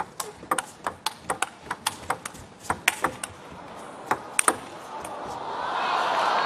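Table tennis rally: the celluloid-type ball clicking sharply off the table and the players' rubber-faced paddles in a quick run of taps, two to four a second, ending about four and a half seconds in. Crowd applause and cheering then swell up as the point is won.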